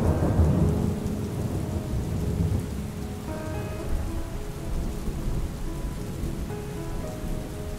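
Steady rain falling, with a low rumble of thunder dying away in the first second. Soft, held musical notes sound faintly over the rain, more of them from about three seconds in.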